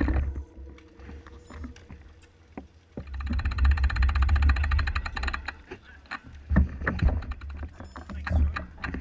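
Road bikes rolling to a stop, heard through a handlebar-mounted camera: wind rumble on the microphone, a rapid run of ticking near the middle, and a few scattered knocks, with faint voices of the riders.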